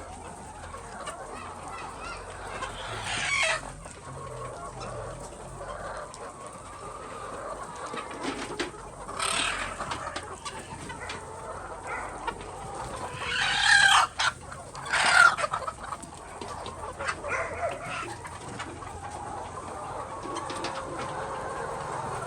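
A flock of chickens clucking, with several loud calls standing out above it. The loudest two come close together about two-thirds of the way through.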